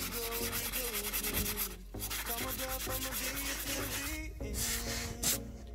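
Hand sanding of a boat's fibreglass hull: a sanding block rubbed back and forth in quick strokes over old, flaking paint, with two brief pauses.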